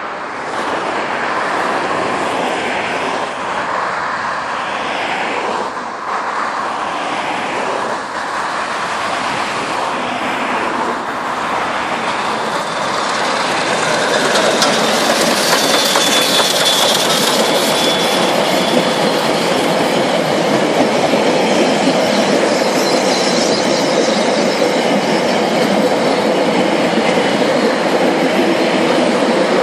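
Ab-class steam locomotive chuffing with slow, steady exhaust beats as it approaches, then passing close by with its coupled carriages rolling past, getting louder about halfway through. A brief high squeal from the wheels comes just after it passes.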